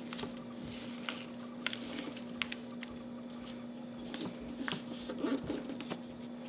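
Origami paper rustling and crinkling in scattered light taps as it is folded and creased by hand, over a steady low hum.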